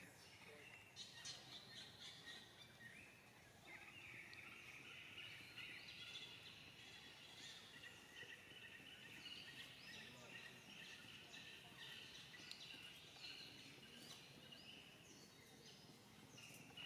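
Faint outdoor ambience: birds calling over a steady, high-pitched chirring chorus.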